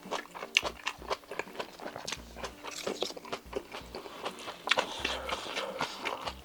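Close-miked chewing and mouth sounds of a person eating stir-fried octopus bibimbap, a steady run of short wet clicks.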